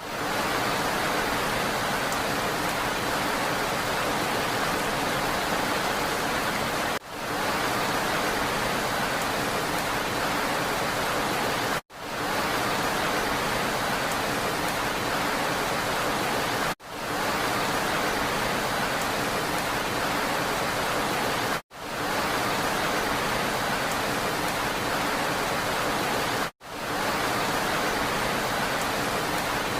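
Steady rain hiss played as a short repeating loop. It dips out for a split second and swells back in about every five seconds.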